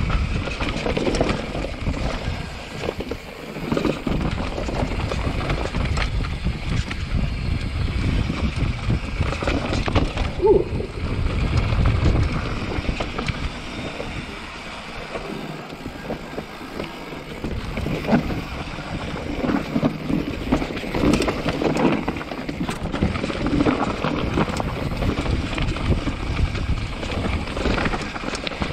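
Mountain bike descending a rocky trail: tyres rolling over rock with a constant rumble and many short knocks and rattles, and wind on the microphone. It goes quieter for a few seconds about halfway through.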